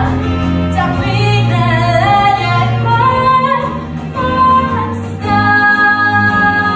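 A female singer performing a musical-theatre song over instrumental accompaniment, her melody moving through several notes and then settling on a long held note from about five seconds in.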